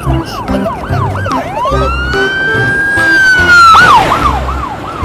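Cartoon police siren on a police helicopter: quick up-and-down wails, then a long rise to a held high tone that falls away shortly before four seconds in, then quick wails again.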